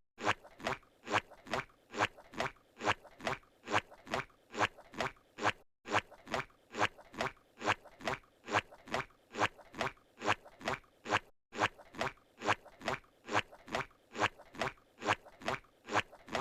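Squidward's cartoon footstep sound effect from SpongeBob SquarePants, repeating as a steady walk of short steps about three a second. The steps break off briefly about every six seconds where the looped clip restarts.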